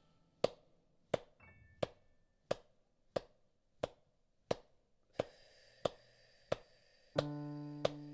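Hand claps at a steady pace, about three every two seconds, counting out the beats of a paced breathing exercise (breathe in, hold, breathe out). Soft improvised piano underneath: a few high notes about a second and a half in, and a low chord near the end.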